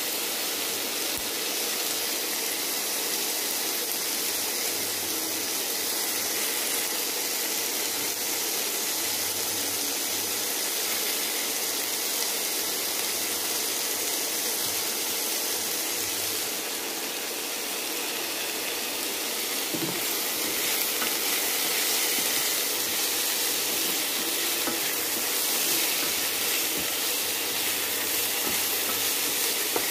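Sliced tomatoes, onions and chillies frying in a non-stick wok, giving a steady sizzle.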